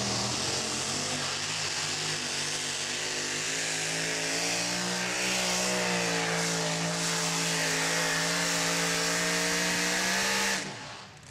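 Two-wheel-drive pulling truck's engine running flat out as it drags the weight-transfer sled, holding a high, steady pitch that dips slightly and recovers midway. Near the end it cuts off abruptly as the truck stops at the end of its pull.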